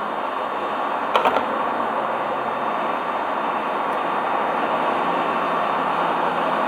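Steady airy rush of a hot-air rework station blowing on a phone motherboard to heat off the CPU and UFS chips, with a quick cluster of three clicks about a second in.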